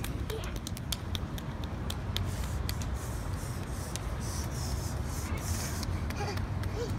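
A child's bare feet slapping on deck tiles while running: a string of quick, irregular sharp slaps over a steady low rumble, with a burst of hiss about four to six seconds in.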